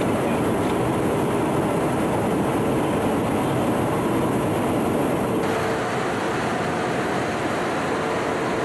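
Steady in-flight cabin noise inside an aerial refuelling tanker's boom operator position: jet engine and airflow noise with a steady low hum, changing slightly about five seconds in.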